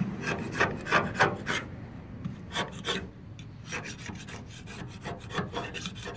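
Razor-blade scraper scraping paint off a car's metal body panel in short, quick strokes, about three a second, louder in the first second and a half. The base coat is coming away easily in curls, down toward bare metal.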